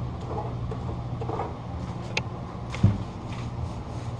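Paint roller being rolled through paint in a metal roller tray, with a sharp click and then a heavier knock a little after the middle, over a steady low hum.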